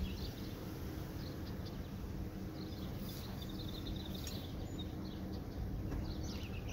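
Birds chirping and singing over a steady low buzz of honey bees flying around an opened hive.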